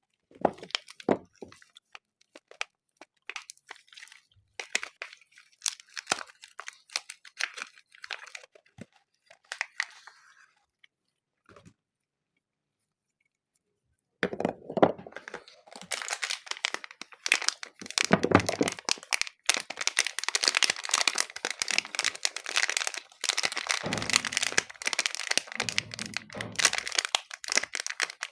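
Soap wrappers crinkling and tearing as soap bars are unwrapped: separate crackles at first, a pause of a few seconds near the middle, then dense, continuous crinkling.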